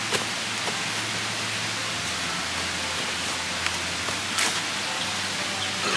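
Steady hiss of forest background, with a few short knocks and snaps as dry branches are handled and footsteps cross leaf litter.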